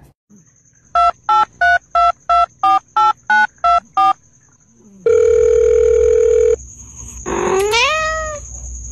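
Touch-tone phone keypad dialing a number: about ten quick two-pitch beeps in a row, then a long steady phone tone. Near the end comes a short call that rises in pitch.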